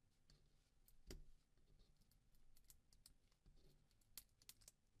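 Near silence, broken by faint scattered clicks and scratches of tweezers picking at and peeling an adhesive type label off a phone's plastic inner cover.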